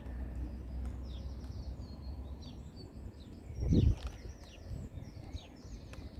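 Songbird singing, a run of quick high chirps and trills, over a steady low rumble. A brief low whoomp a little past halfway is the loudest sound.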